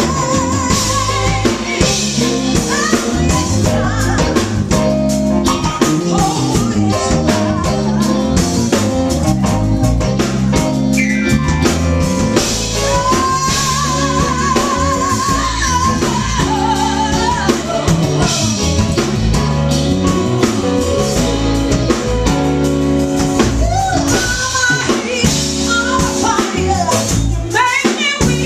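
A woman singing into a microphone with a live band of electric bass, drum kit and tambourine, the bass line prominent, with long sung notes held with vibrato.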